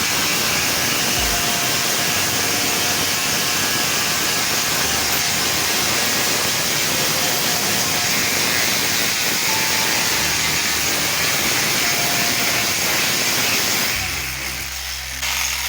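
Angle grinder running steadily with a loud, even hiss-like whir, stopping about 14 seconds in. Music then begins.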